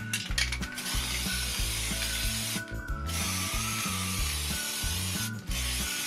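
Aerosol spray can hissing in long bursts as it sprays onto wooden beams, with brief pauses about two and a half seconds and five and a half seconds in.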